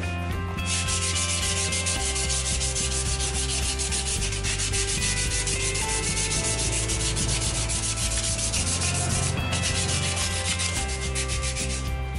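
Abrasive paper rubbed by hand, back and forth in quick strokes along the rusty steel tubes of a Mobylette AV44 moped frame: a scratchy scrubbing as the rust is roughed up as prep for paint. It breaks off briefly about nine seconds in and stops near the end.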